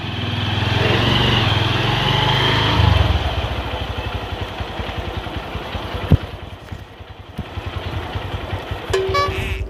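Small motorcycle engine running as the bike rides up and pulls in, with a low, even pulsing of its firing throughout, louder in the first three seconds. There is a single sharp click about six seconds in and a short tone near the end.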